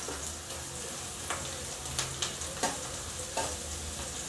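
Sliced onions sizzling in hot oil in an aluminium kadai as a metal spoon stirs them, with several sharp taps and scrapes of the spoon against the pan.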